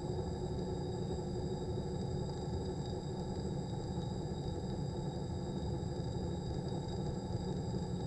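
Steady rumble of a cable-camera rig running along its wire, with a faint steady high whine over it.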